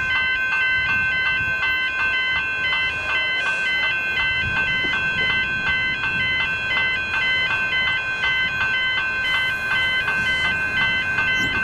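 Electronic level-crossing bells, a General Signals Type 1 and a Type 2, ringing together in rapid, even strokes over a steady high electronic tone, with low traffic rumble beneath.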